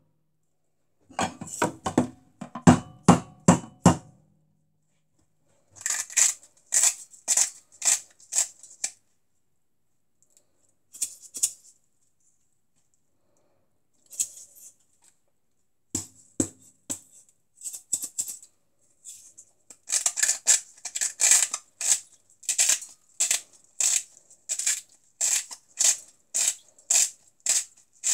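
Salt being shaken out of a salt container into the rice water: runs of quick, rattling strokes, about two to three a second, in several bursts with short pauses between them, the longest run near the end.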